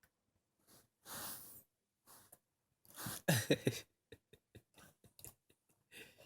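Lhasa Apso dog breathing in short noisy puffs, then yawning with a brief low whine about halfway through. A run of small clicks follows.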